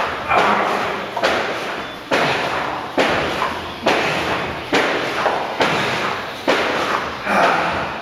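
Climbing pegs being jammed one after another into the holes of a plywood pegboard as it is climbed: a steady run of about nine loud knocks, roughly one a second, each dying away slowly.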